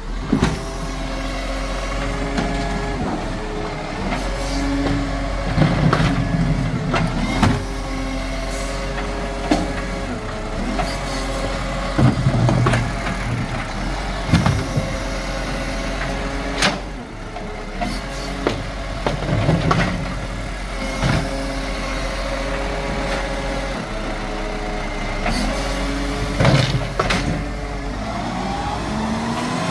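Side-loading garbage truck running steadily while its hydraulic arm picks up and empties wheelie bins: about four louder surges of the hydraulics, with sharp knocks and bangs of bins being grabbed, tipped and set down.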